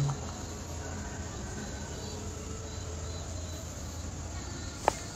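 Steady low hum under faint background noise, with one sharp click near the end.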